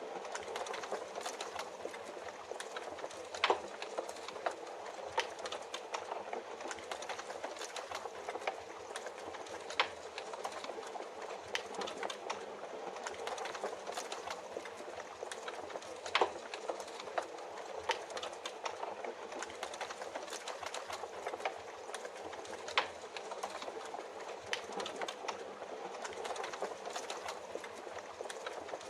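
Steady rain hiss with a wood fire crackling over it: frequent small snaps and a handful of louder pops, irregularly spaced.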